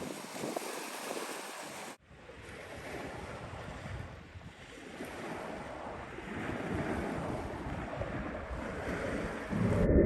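Wind buffeting the microphone over sea surf, with a break about two seconds in and a louder gust near the end before the sound cuts off.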